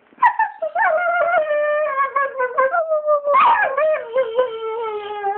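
A dog howling and whining in long, wavering drawn-out notes that slide up and down in pitch, with a louder rise about three seconds in, sinking lower near the end.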